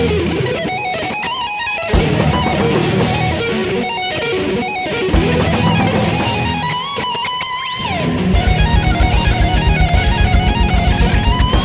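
Background music led by electric guitar, in a heavy rock style; a rapid, steady low pulse joins about eight seconds in.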